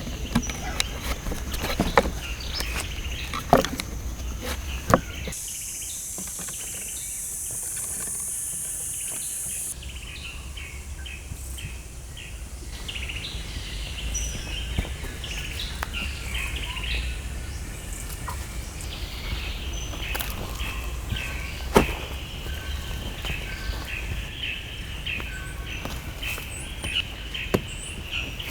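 Birds chirping and insects buzzing, with a steady high insect drone for a few seconds early on. A few sharp knocks stand out, the loudest about 22 seconds in.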